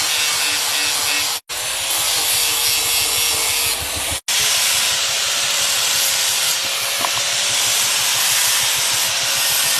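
Angle grinder with a flap disc grinding the edge of a steel carpenter's axe to sharpen it: a steady, loud grinding hiss with the motor's whine underneath. The sound drops out for a split second twice, in the first half.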